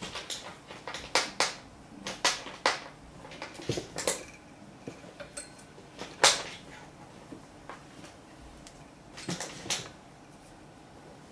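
Burmese kitten playing on a tiled floor: scattered light clicks and taps of paws and claws skittering on the tiles, with a sharper knock about six seconds in and a short flurry of taps near the end.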